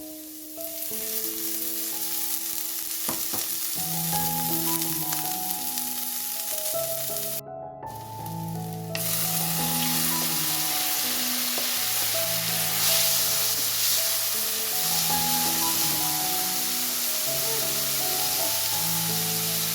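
Food sizzling as it fries in a pan, a steady hiss that cuts out briefly about seven and a half seconds in, under a slow background melody.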